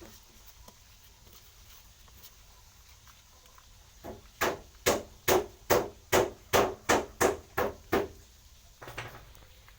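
A quick, even run of about ten sharp knocks, two or three a second, starting about four seconds in and stopping after some four seconds, then one more knock near the end.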